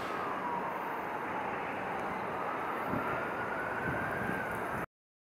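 Steady outdoor noise of distant vehicles, with a faint whine that slowly falls and then rises in pitch. The sound cuts off suddenly near the end.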